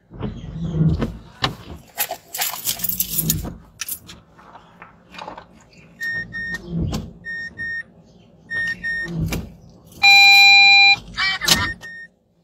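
Knocks and rustling from the phone being handled, then short high electronic beeps in pairs, repeating about every second and a half. About ten seconds in comes one loud steady tone lasting about a second.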